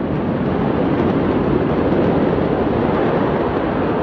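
Steady, loud outdoor rumble on a phone's microphone, wind noise mixed with distant city noise, slowly growing a little louder, with no blast or bang in it.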